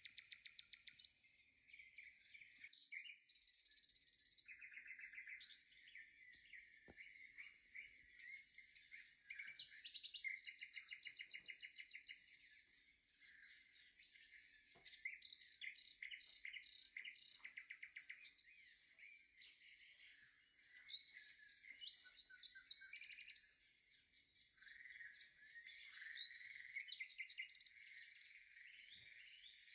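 Faint birdsong: many small birds chirping and trilling without a break, rapid high twitters overlapping, with a few faint clicks.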